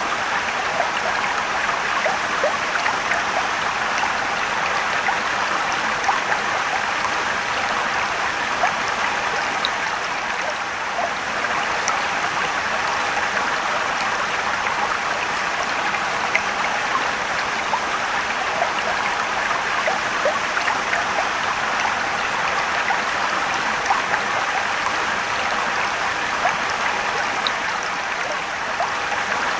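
Mountain stream and waterfall running steadily: continuous rushing water with small splashes and trickles throughout.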